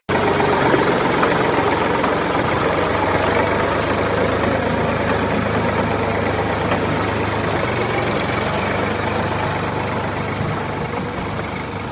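A small engine running steadily at idle, cutting in abruptly and easing slightly near the end.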